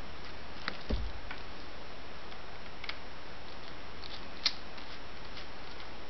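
A few scattered light clicks of a small hex screwdriver working screws in a smartphone's plastic housing, with a soft thump about a second in and the sharpest click near the middle. This is the clicking a screw gives once it has come loose.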